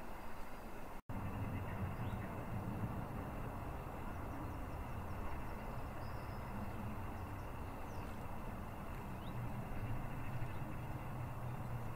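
Steady outdoor ambience: a low rumble with hiss over it and a few faint, short high chirps. The sound cuts out for an instant about a second in.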